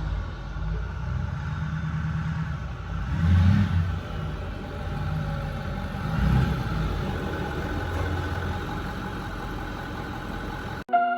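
A vehicle engine running while driving, swelling up and easing off a few times as it revs. Music cuts in suddenly near the end.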